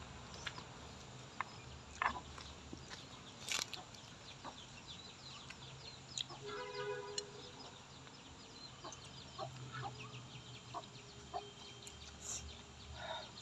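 Spoons clicking and clinking against clay bowls as two people eat, with a chicken clucking in the background about seven seconds in.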